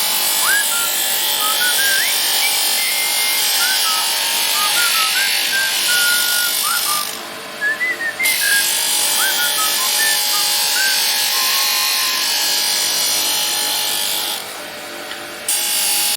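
MIG welding arc sizzling steadily and loudly, breaking off briefly about seven seconds in and again near the end.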